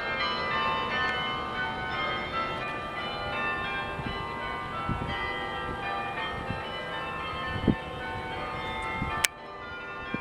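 The Berkeley campus chime, the bells of Sather Tower, ringing a tune: many bell tones overlapping and dying away. A few low thumps and one sharp click about nine seconds in, after which it is a little quieter.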